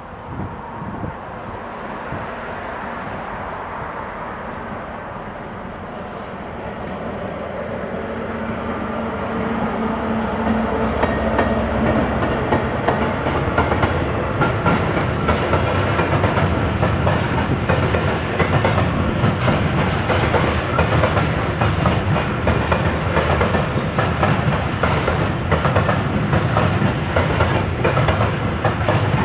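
A train approaching and passing at close range, growing louder over the first ten seconds or so. Its wheels then clatter over rail joints and points in a dense run of clicks.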